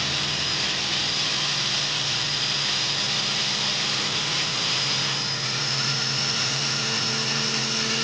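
Electric countertop blender with a glass jar running steadily at speed, its motor whirring as it purees fruit into a smoothie.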